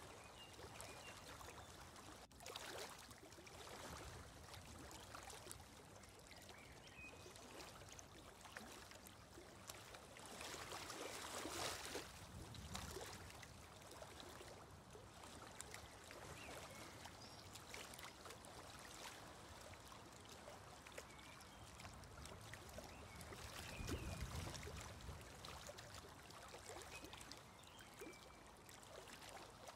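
Faint, steady flowing-water ambience, swelling a little about a third of the way in and again near the end, with a few faint high chirps.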